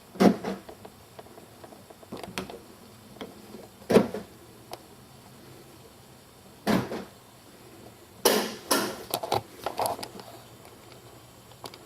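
A few separate knocks and clunks, then a quick cluster of knocks and rattles near the end.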